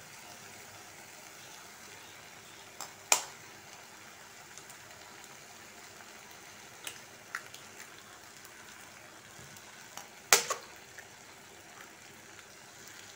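Faint steady sizzle of onion-tomato masala frying in a pan, broken by a few sharp taps as raw eggs are cracked on the pan's edge. The taps come in pairs about three, seven and ten seconds in, the loudest about ten seconds in.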